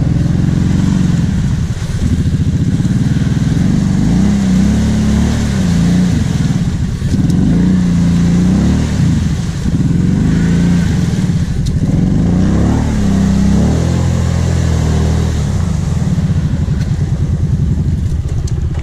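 Kawasaki KVF 750 Brute Force ATV's V-twin engine revved up and down over and over as the quad churns through a deep, water-filled mud rut, with muddy water splashing around it.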